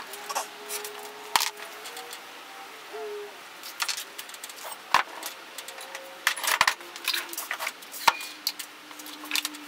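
Small hard objects, some of them metal, clicking and clattering as they are handled and set down on a workbench, a few taps every second with several louder knocks. A faint low tone holds under them and shifts to a new pitch a few times.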